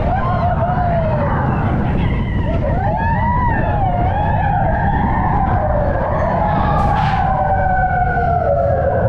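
Roller coaster mine-train cars rumbling steadily along the track, with riders whooping and yelling over the rumble. A brief hiss comes about seven seconds in.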